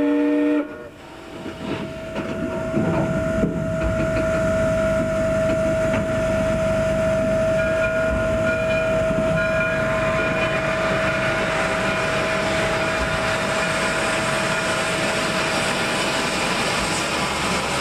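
Frisco 1630, a 1917 Baldwin 2-10-0 steam locomotive, heard from its cab while under way. The steam whistle cuts off about half a second in. Steady running noise then builds over the first few seconds and holds, with a thin steady tone under it.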